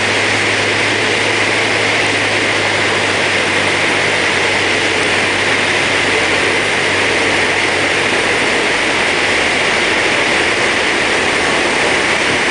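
Cockpit noise of a small single-engine Cessna on final approach: a steady engine and propeller drone under loud rushing airflow. The low engine hum weakens about four seconds in, as power comes back for the landing flare.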